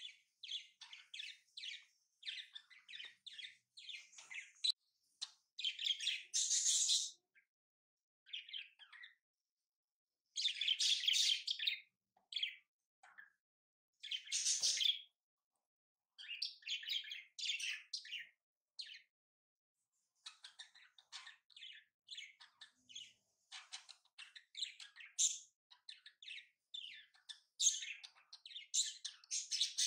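Origami paper crinkling and rustling in short, irregular bursts as it is folded and creased by hand, with a few louder crackles.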